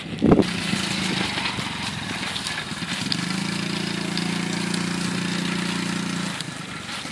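Small kids' dirt bike engine running at a steady, even speed. It gets louder for a few seconds as the bike passes close by and then drops away near the end. A brief rumble of wind on the microphone comes right at the start.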